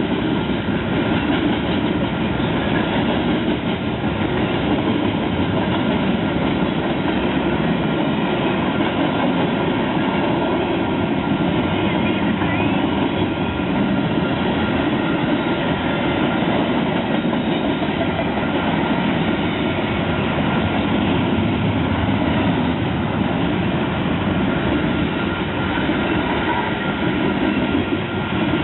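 A train rolling past on the rails, with a steady rumble and rattle of its cars' wheels over the track.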